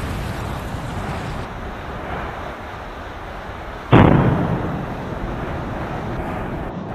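Volcanic fissure eruption: a steady rushing noise, then one sharp explosive blast about four seconds in as the vent throws out lava and ash, fading over about a second.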